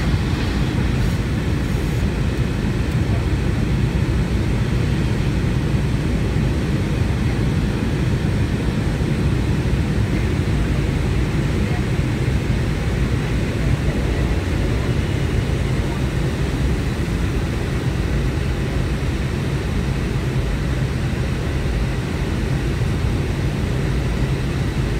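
Steady cabin noise of a McDonnell Douglas MD-90 climbing out after takeoff, heard from inside the cabin: the low drone of its rear-mounted IAE V2500 turbofans mixed with the rush of airflow past the fuselage.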